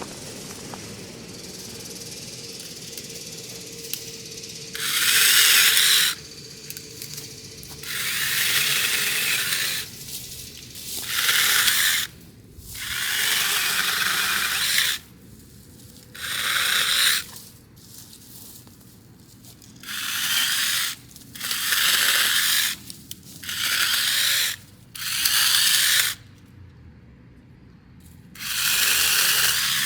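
Battery-powered 6-inch mini chainsaw with a brushless motor cutting pine branches in about ten short bursts of one to two seconds each, with pauses between the cuts.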